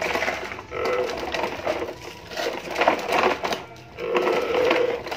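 Large plastic toy dump truck pushed along paving stones, its hard plastic wheels rolling and rattling in about four pushes of a second or so each.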